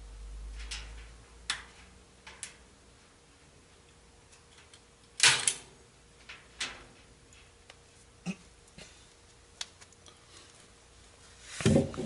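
Scattered sharp clicks and snaps from hand work on wire mesh stretched over a wooden cage frame, the loudest about five seconds in. Near the end, knocks and rustling close to the microphone as the camera is picked up and moved.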